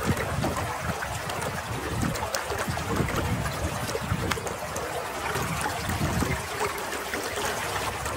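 Shallow stream running and trickling over rocks, with small splashes and light ticks as hands rinse and trim green onions in the water.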